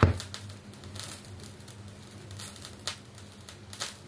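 Turntable stylus setting down on a spinning vinyl record with a thump, then the run-in groove's surface noise: steady crackle with a few sharp pops over a low amplifier hum, heard through the hi-fi speakers before the music starts.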